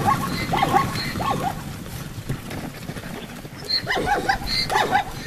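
Zebra barking calls: a quick run of short yelping barks, each rising and falling in pitch, then a lull and a second run about four seconds in.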